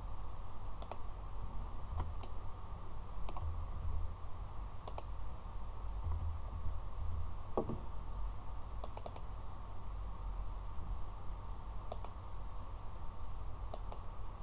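Computer mouse clicking now and then, about eight sharp single clicks and one quick double-click near the middle, over a steady low hum.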